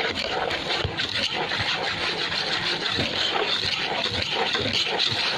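Wire whisk stirring dry flour and sugar in a large plastic bowl: a steady scraping, rubbing rustle.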